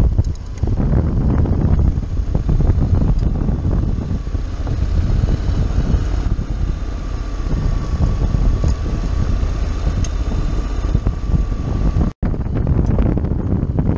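Wind buffeting a helmet-mounted microphone during a ride on a Honda X-ADV scooter over a dirt track, with the bike's running and tyres on gravel mixed into a steady low rumble. The sound cuts out for an instant near the end.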